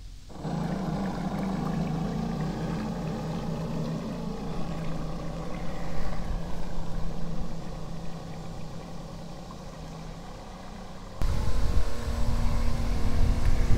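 Electric drive motor of a radio-controlled bait boat humming steadily as the boat runs out across the water, fading as it moves away. About eleven seconds in, the sound jumps to a louder low rumble with a slightly higher hum.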